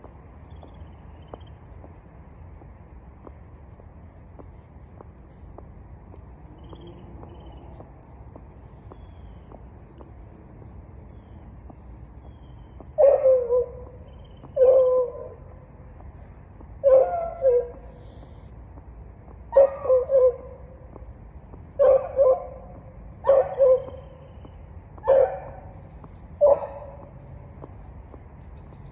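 A dog barking, eight single barks spaced one to three seconds apart, over a steady low background hum.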